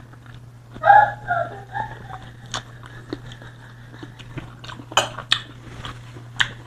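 Mouth sounds of a person eating rambutan: a short hummed vocal sound about a second in, then a few sharp wet lip smacks and chewing clicks.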